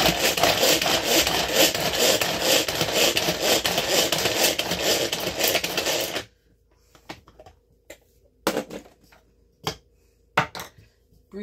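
Hand-pulled cord food chopper being yanked repeatedly, its blades whirring and rattling garlic cloves around the clear plastic bowl. The chopping stops about six seconds in, followed by a few light clicks and knocks.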